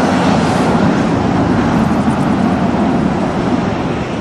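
2016 Audi RS6 Avant's twin-turbo V8 engine and exhaust as the car drives past close by, loudest as it nears and easing off a little as it pulls away.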